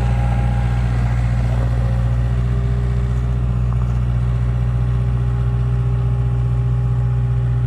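Skid steer engine running at a steady speed, a constant low hum.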